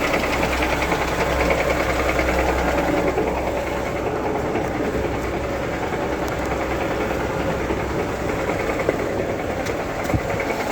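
Lada Niva running in gear with its wheels hanging free, with a rapid knock coming from the gearbox. The owner does not know its cause. About three seconds in, the sound eases a little and the low hum drops.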